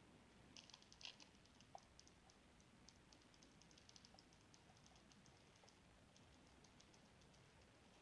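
Faint, quick, irregular light clicks and ticks, thickest near the start and thinning out toward the end, over near silence.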